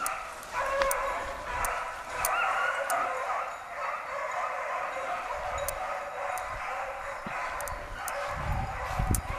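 A pack of basset griffon vendéen hounds baying and yelping together on the hunt, the cries overlapping without a break and fading a little after the first few seconds. Sharp twig snaps and a low rumble of wind or handling noise near the end.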